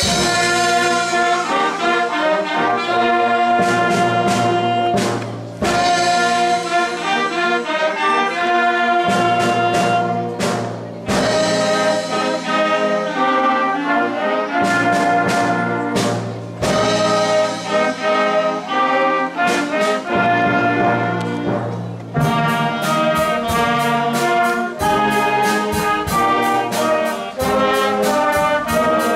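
Youth wind band playing, with trumpets and other brass leading over clarinets and flute. From about two-thirds of the way through, evenly spaced percussion strokes drive a steady beat.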